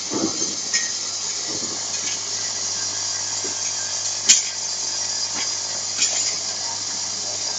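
Vibratory bowl feeder of an eyelet machine running with a steady hum, the metal eyelet rings rattling as they shake along its track. A sharp click sounds about four seconds in, with a couple of softer ones before and after.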